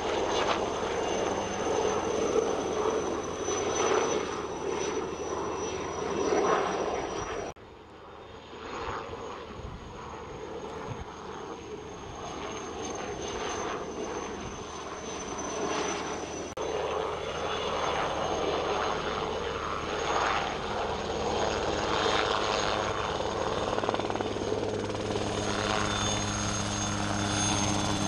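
Helicopter flying low while spreading fertiliser from an underslung bucket: rotor beating over a steady high whine. The sound drops suddenly about seven seconds in, then grows louder toward the end as the helicopter comes overhead.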